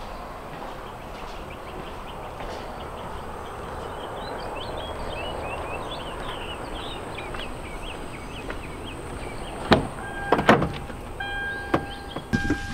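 Small birds chirping over a steady background hiss, then, about ten seconds in, two sharp clicks as a pickup truck's door is unlatched and swung open, followed by the truck's door-open chime repeating in short beeps.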